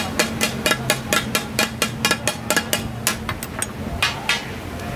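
Two metal spatula-blades clattering rapidly on a flat iron griddle (tawa) as they chop meat for taka tak, the dish named for this sound, at about six strikes a second. The strikes slow near the end and stop, over a steady low hum.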